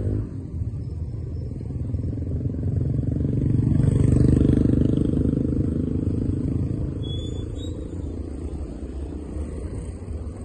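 Road traffic: a steady low rumble of vehicles on the road, swelling as a vehicle passes close about four seconds in and then fading.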